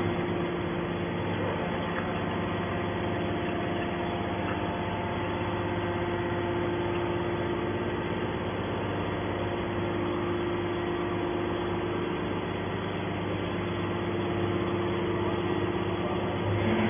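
Hydraulic scrap metal baler running steadily: a constant mechanical hum with several held tones over a machine noise, with no strokes or impacts.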